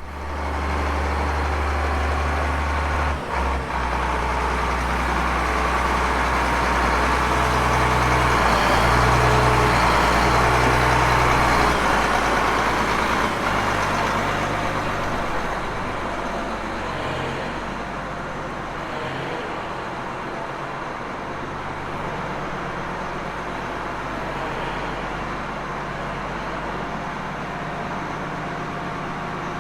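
A vehicle engine running steadily, with a deep drone that shifts pitch a few times in the first half and then settles.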